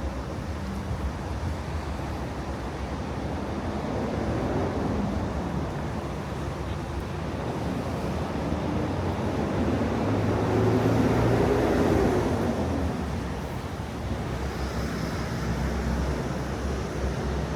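Steady low rumble of passing vehicles. It swells and fades about ten to thirteen seconds in as one goes by.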